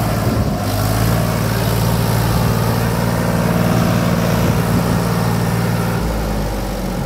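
Powertrac Euro 50 tractor's diesel engine running steadily while it pulls a loaded trailer through deep mud. Its note changes about six seconds in.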